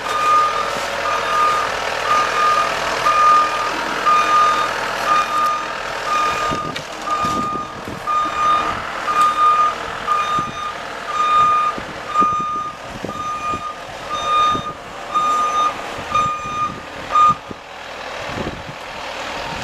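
Vehicle backup alarm beeping at one steady pitch in evenly repeated beeps, stopping near the end, over a running engine with occasional clunks.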